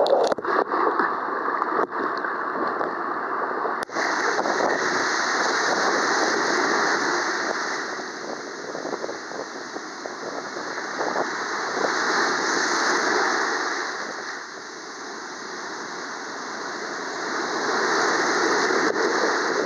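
Surf breaking and washing up on a beach: a continuous rush of churning water and foam that swells and eases as the waves roll in.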